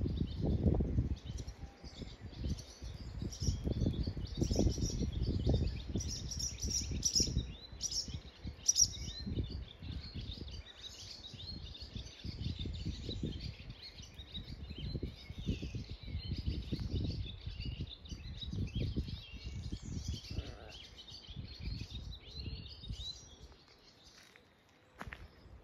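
Small songbirds chirping and singing continuously, with irregular low rumbling underneath that is strongest in the first half and fades out near the end.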